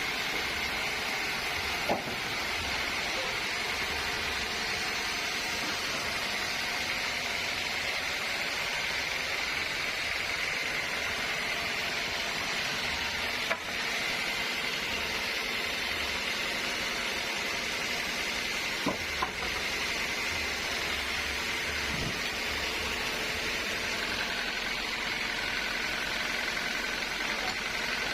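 Sawmill machinery running steadily, a continuous even mechanical noise with a faint whine, broken by a few short knocks, two of them close together partway through.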